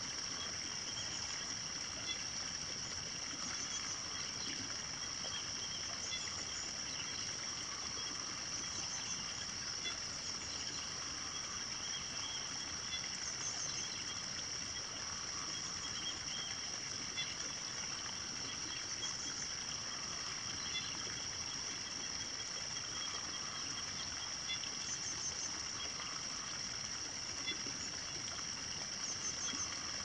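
Rural nature ambience: a steady high-pitched drone over a soft hiss, with birds chirping briefly every few seconds.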